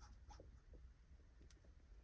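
Near silence, with a few faint, scattered clicks of small metal parts being handled as a threaded shift-knob adapter is screwed in by hand.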